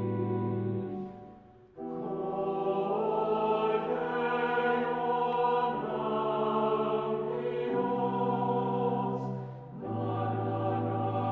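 Mixed choir singing slow, sustained chords. One phrase fades out about a second and a half in, then a new chord enters after a short pause, and there is another short break between phrases near the end.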